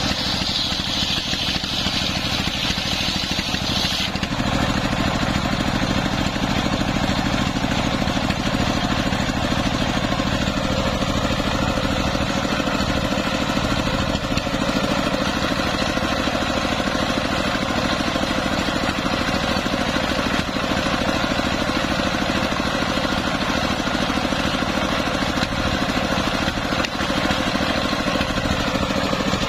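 Stationary diesel engine running steadily, belt-driving a homemade circular saw. For about the first four seconds the blade rips through a wooden slab with a high cutting whine, which stops abruptly; after that the engine and the free-spinning blade run on without cutting.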